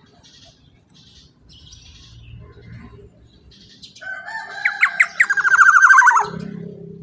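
Black-naped oriole (kepodang) calling. A loud run of rapid notes begins about four seconds in, lasts about two seconds and ends in a falling note, after softer scattered chirps.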